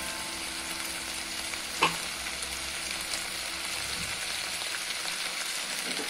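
Fish, green peas and tomato curry sizzling in a frying pan, with a wooden spatula stirring through it. There is one sharp knock about two seconds in.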